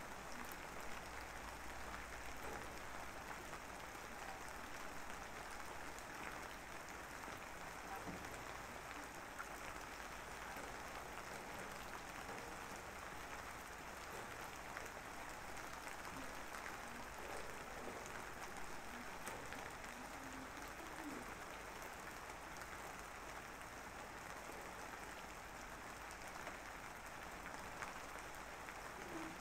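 A steady, even hiss of noise with no speech, with a few faint short tones here and there.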